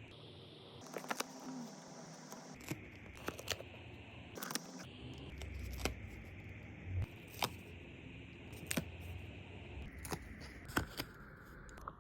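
Paper stickers being handled, peeled and pressed on: irregular sharp clicks with light scrapes and crinkles of paper and sticker backing.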